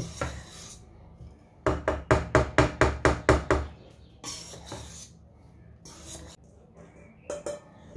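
Hand whisk beating batter in a stainless steel mixing bowl, working flour into a cake mix: a quick run of about ten strokes, some five a second, knocking against the metal, then a few scattered scrapes and taps.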